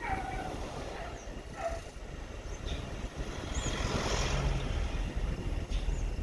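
Engine and tyre noise heard from inside a moving vehicle, with a pickup truck passing close alongside. The truck's noise swells to its loudest about four seconds in.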